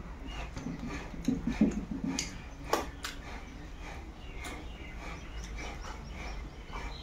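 Close mouth sounds of eating by hand: wet chewing and lip smacking. A few sharp smacks come as the fingers are sucked clean, the loudest a little under three seconds in.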